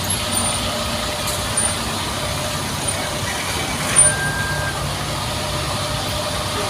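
Steady hum of motor vehicles running in the street, with a few short high chirps and a sharp click about four seconds in.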